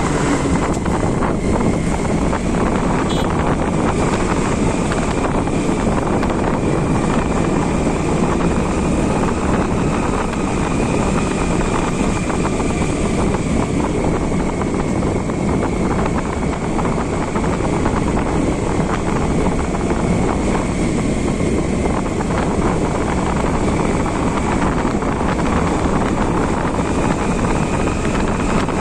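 Motorcycle engine running steadily while riding, with constant wind rush over the microphone.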